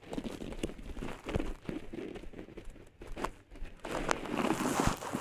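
Rustling and crinkling with scattered sharp clicks and knocks, the louder stretch near the end: handling noise from a phone microphone strapped to the body, rubbing against clothing as the wearer moves.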